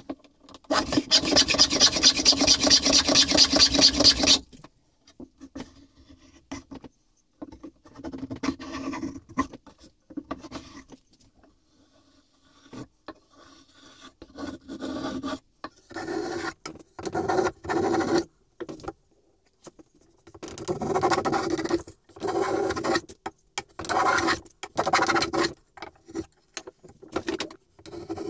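Hand planes cutting beech, a series of scraping strokes as the blade lifts shavings. There is a long, loud run of rapid strokes near the start, then shorter separate passes of about half a second to a second each.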